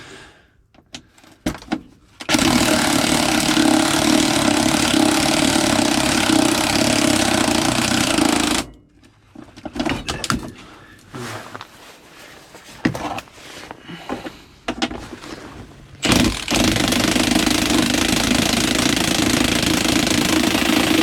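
A loud machine or power tool runs steadily for about six seconds and stops; after a stretch of scattered clicks and clanks it starts again about sixteen seconds in.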